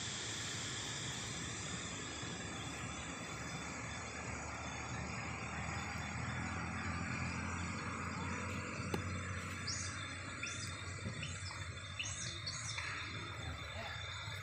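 Steady drone of insects over outdoor background noise, with a run of about six short, high chirps from around ten seconds in.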